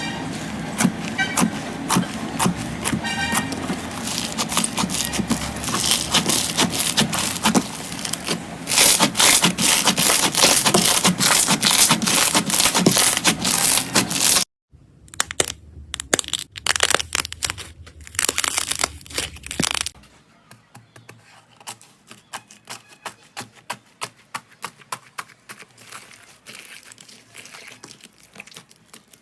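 Slime being squeezed and pressed, giving off dense crackling and popping clicks, loud and continuous for the first half, then sparser, and after about two-thirds of the way only soft scattered clicks.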